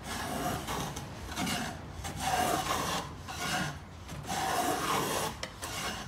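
Hand plane shaving the freshly sawn edge of a softwood board: about five forward strokes, each a short hissing rasp, cleaning up the rough ripped edge.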